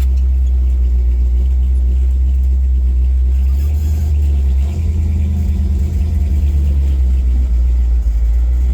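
1964 Chevrolet Impala SS's built 327 small-block V8 running with a steady low rumble, its note changing about three and a half seconds in.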